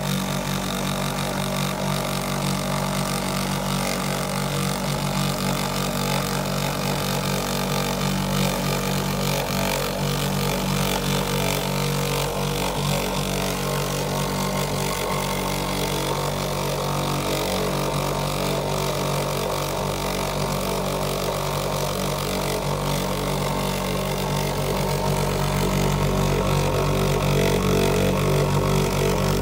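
Shurflo 12-volt diaphragm pump running steadily while pulling vacuum on sap tubing, a constant motor hum that grows a little louder near the end.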